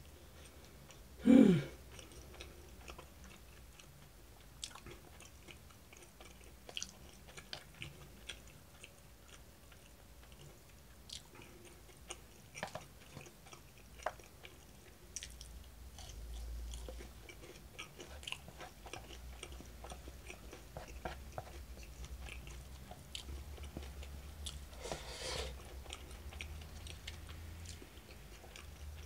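A person eating shrimp tempura and rice with chopsticks from a plastic takeaway tray: soft chewing, and scattered small clicks of chopsticks against the tray. About a second in there is one short, loud sound that falls in pitch.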